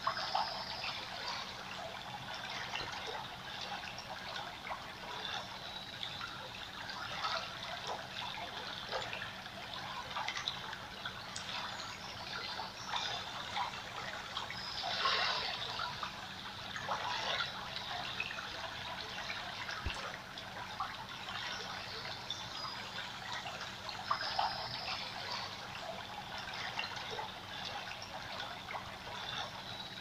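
Water trickling and gurgling over stones in a small stream, with irregular louder gurgles now and then. A faint low hum lies underneath.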